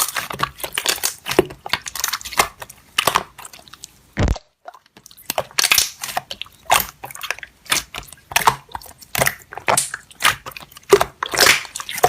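Slime being squeezed and poked by hand, making dense, irregular sticky clicks and pops, with a brief pause about four seconds in.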